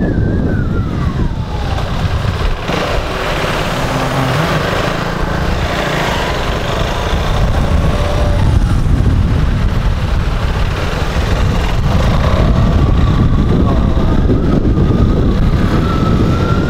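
Wind rumbling hard on a lav mic inside an open-face helmet while riding a KTM 390 motorcycle, over the bike's single-cylinder engine and traffic. A faint whine falls in pitch in the first second or two, and another steadier whine comes in over the second half.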